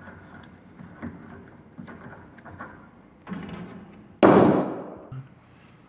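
Metal pipe fittings and tools knocking and clinking while old water-heater piping is taken apart, then one loud metallic clank about four seconds in that rings briefly.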